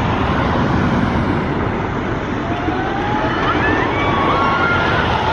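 Two trains of a GCI dueling wooden roller coaster running side by side on the wooden track: a loud, steady rumble, with thin rising squeals over it from about two and a half seconds in.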